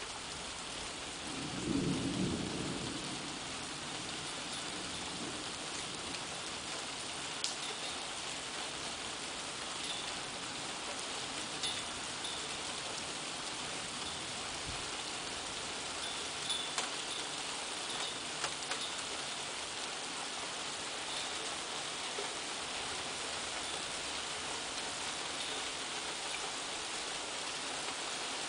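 Steady rain in a thunderstorm, with a short rumble of thunder about two seconds in, right after a lightning flash. A few sharp ticks stand out over the rain now and then.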